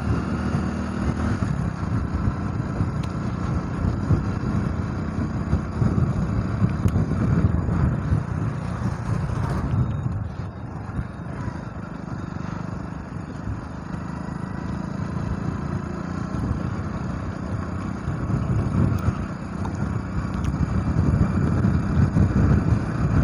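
Motorcycle engine running at riding speed, heard from the bike itself, with road and wind rumble. It eases off a little for a few seconds about ten seconds in.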